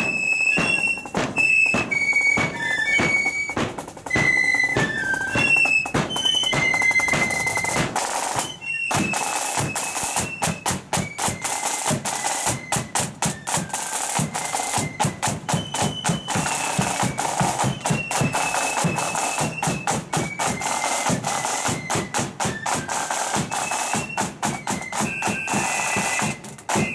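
Marching flute band playing a tune: massed flutes carry a high, stepping melody over side drums and a bass drum beating steadily. The music breaks off briefly about a third of the way in.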